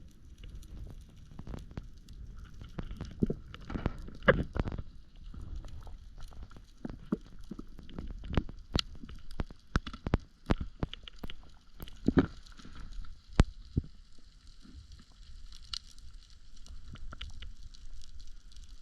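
Underwater sound picked up through an action camera's waterproof housing: irregular sharp clicks and knocks over a low rumble.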